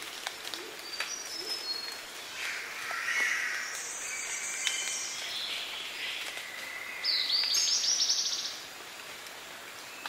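Highland rainforest morning bird chorus with calls from spotted catbirds and Lewin's honeyeaters: overlapping high calls and whistles, the loudest a rapid run of high notes about seven seconds in that lasts over a second.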